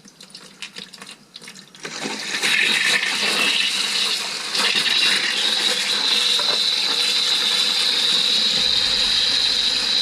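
A faucet is opened about two seconds in, and water gushes out steadily. A high, steady whistle joins the rush partway through. The water is running to purge air from newly plumbed supply lines while the hot water comes through.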